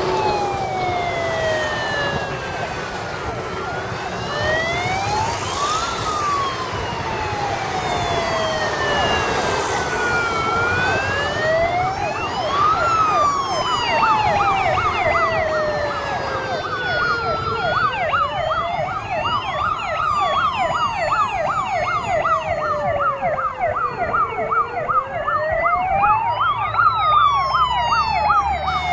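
Sirens of two fire engines, a Star 266 rescue truck and a Jelcz 422, on an emergency run. A slow rising and falling wail goes on throughout, and about halfway through a second siren joins in with a fast yelp.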